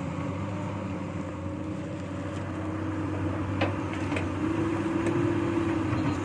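Komatsu hydraulic excavator's diesel engine running steadily under load as the arm lifts and swings a bucket of rock. The engine note rises and grows stronger about halfway through, with a few short knocks in the middle.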